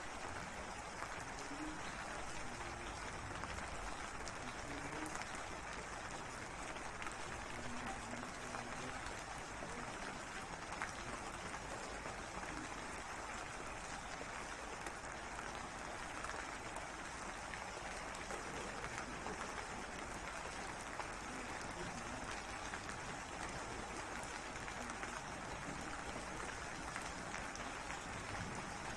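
Steady rainfall: an even hiss with scattered sharp drop ticks.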